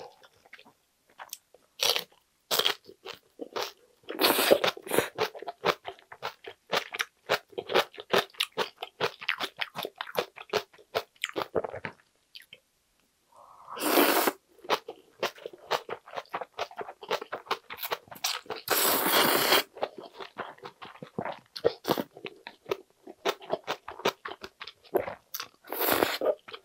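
Close-up eating sounds: crisp, crackling crunches of napa cabbage kimchi being chewed, with loud slurps of ramyeon noodles about halfway through and again a few seconds later.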